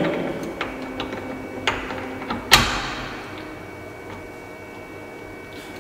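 Light metal clicks from an aluminium blade holder being seated on a brush cutter's gear-head shaft and handled with a hex key: four clicks, the loudest about two and a half seconds in with a brief ring.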